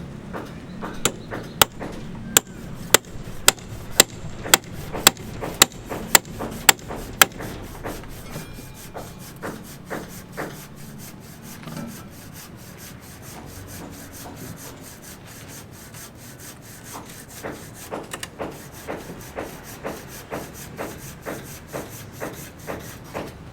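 A hammer striking repeatedly, about two blows a second, loud for the first several seconds. After a stretch of quieter scraping and rubbing, a softer run of steady blows starts in the second half.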